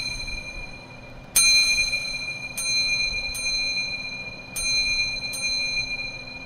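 A bell-like chime strikes about five times, each strike ringing on with a high, slowly fading tone. The strikes come roughly one to one and a quarter seconds apart, in an uneven pattern, over a faint low hum.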